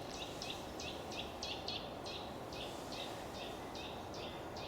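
A bird chirping a steady run of short, high, falling notes, about four a second, over a constant background hiss.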